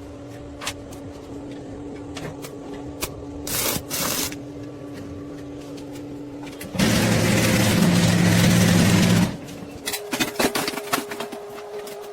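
MIG welder at work: a steady hum with scattered clicks, then a loud crackling burst of about two and a half seconds of welding, followed by a steadier tone with rapid irregular clicking.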